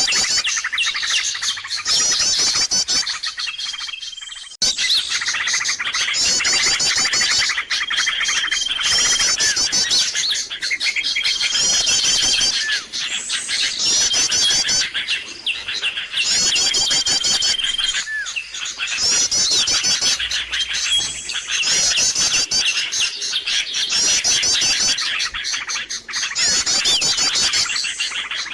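Bird-lure (pikat) recording: a dense, busy chorus of small birds chirping and trilling rapidly, with a short high steady whistle note recurring every few seconds, played as a loop to draw wild birds in.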